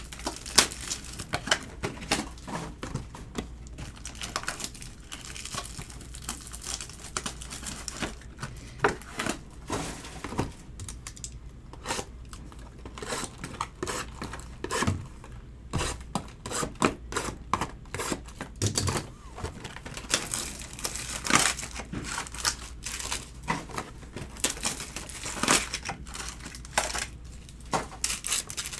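Trading cards and foil card-pack wrappers being handled: crinkling and tearing of wrappers and cards clicking as they are sorted, in many short, irregular crackles.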